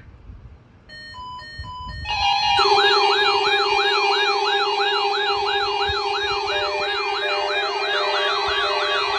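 Electronic alert alarm: a few short beeps, then from about two seconds in several fast-yelping siren tones layered over a steady low tone, running on without a break.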